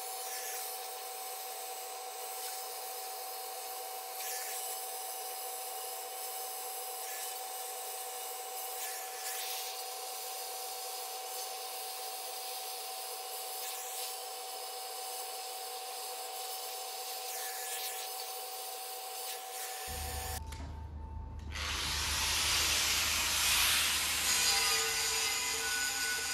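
Oxy-fuel cutting torch hissing steadily as it cuts the corners off the steel centre of a tractor wheel rim, with a short scrape every couple of seconds. About twenty seconds in it stops abruptly and a louder, fuller sound takes over.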